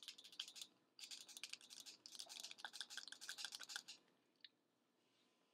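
Ground ginger being shaken from a small spice jar over a metal bowl: a faint, rapid clicking of the jar being shaken and tapped, which stops about four seconds in.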